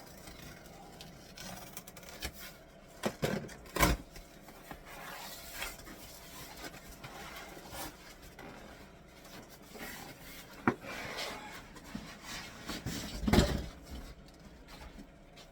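Packaging of a new diesel heater being opened and handled: rustling and scraping with knocks now and then, the loudest about 13 seconds in.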